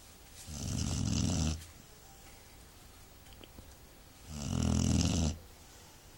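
Snoring: two snores, each about a second long, about four seconds apart.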